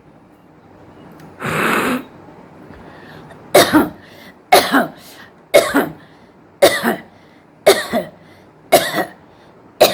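A woman coughing on purpose, putting on fake coughs: after one longer breathy rasp, a steady series of short coughs about one a second, each a quick double hack.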